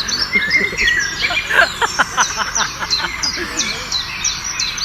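Many birds chirping at once: a dense chorus of short, quick, high chirps and downward-sweeping notes.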